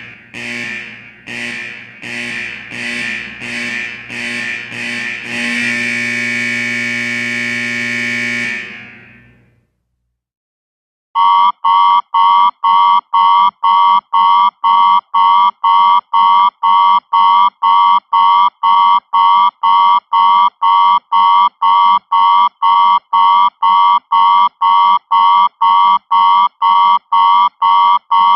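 Two alarm sounds. First a ringing alarm in short pulses that come faster and faster, then held as one continuous ring for about three seconds before fading out. After a short gap, an electronic alarm beeps rapidly, a little over twice a second.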